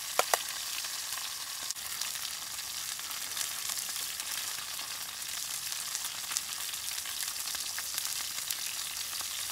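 Sirloin steak sizzling steadily in a frying pan, an even high hiss. Two sharp clicks come just after the start.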